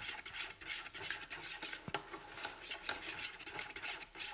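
Cold-process soap batter being hand-stirred in a plastic bucket: quick, irregular scraping strokes of the utensil through the batter as it thickens fast toward trace.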